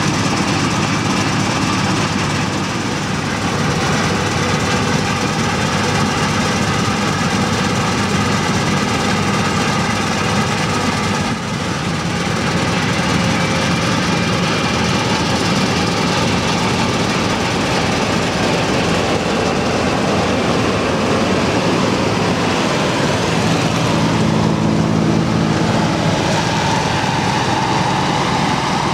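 Deutz-Fahr M2680 combine harvester running steadily under load, its engine and threshing machinery at work harvesting wheat. The noise is loud and even, with a brief dip about a third of the way through.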